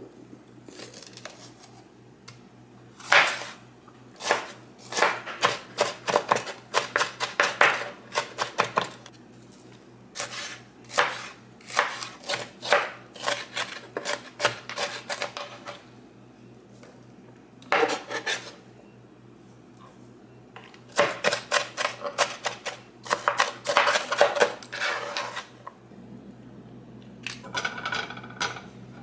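Chef's knife chopping bell peppers on a wooden cutting board, in quick runs of knife strokes with pauses between. Near the end, softer sounds of cherry tomatoes being put into a frying pan.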